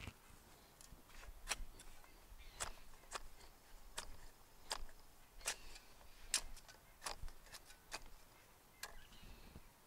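A long-handled spade's metal blade stabbing down into dry soil again and again, about ten short, sharp chops spaced irregularly, less than a second apart, as a planting hole is dug.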